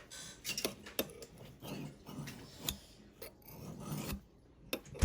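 A knife blade scraped in repeated strokes against a ceramic coffee mug to sharpen it: uneven scrapes about one or two a second, with a few sharp clicks as the blade meets the ceramic.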